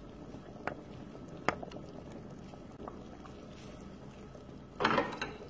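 Tomato sauce simmering in a pot, with two sharp spoon clicks as sardine meatballs are spooned in, then a louder clatter near the end.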